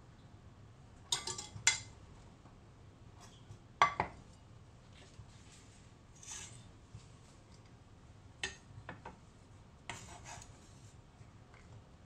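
A cleaver and cut mushrooms and bell pepper strips being gathered and scraped off a wooden cutting board onto a ceramic plate: scattered knocks, scrapes and clinks of the blade against board and plate, the sharpest knock about four seconds in.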